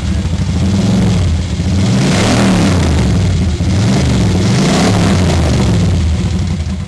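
Moto Guzzi motorcycle engine running loud and being revved up and down several times, each rev rising and falling in pitch, easing back toward idle near the end.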